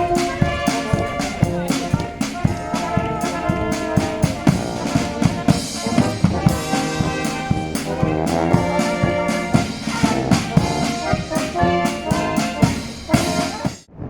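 Music led by brass instruments with drums, played at a steady level and cutting off abruptly near the end.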